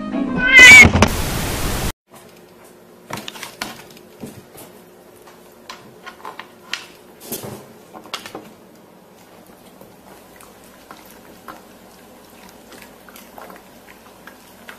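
A cat yowls loudly with a rising, wavering pitch, followed by a short burst of noise that cuts off abruptly. After that comes a quieter stretch of scattered crisp crunches and clicks, as a beagle bites and tears at a whole head of cabbage.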